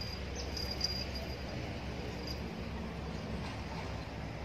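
Steady outdoor background noise with a low rumble, and a thin, high pulsing chirp through the first second and a half that then stops.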